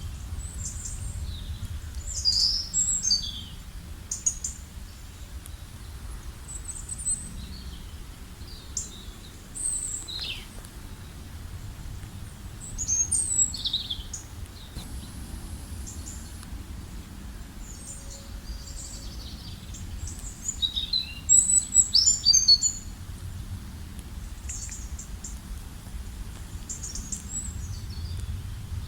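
Songbirds chirping and singing in short, high, quick phrases, scattered and overlapping, busiest about two-thirds of the way through. A steady low rumble runs underneath.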